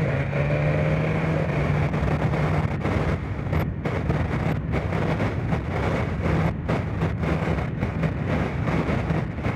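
Motorcycle engine running steadily at cruising speed under heavy wind and road noise. From about three seconds in, the noise turns choppy and jolting as the bike rides over rough, broken pavement.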